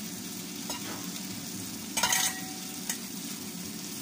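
Chouriço and bacon sizzling with onion and tomato in a nonstick frying pan while being stirred with a silicone spatula. A few light knocks and one louder clatter of the spatula against the pan about two seconds in.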